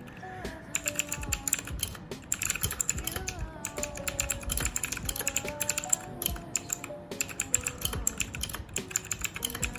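Fast typing on a Leaven K620 keyboard: a dense run of key clicks that starts just before a second in, with brief pauses about two and seven seconds in. Background music with a melody plays underneath.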